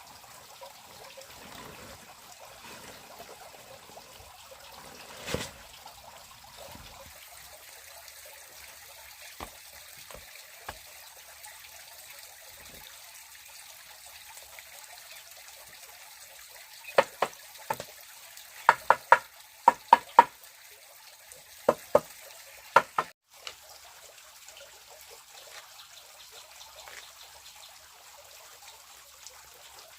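Water trickling steadily, with one sharp knock about five seconds in and a quick run of about ten sharp knocks in the second half.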